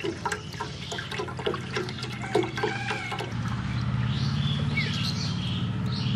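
Milk being poured from a plastic jug into an aluminium pot, splashing and trickling as the jug empties. A steady low hum comes in about three seconds in.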